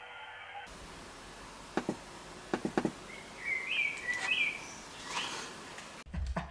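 Several sharp clicks from a laptop keyboard over a steady background hiss, with a few short high chirps in the middle.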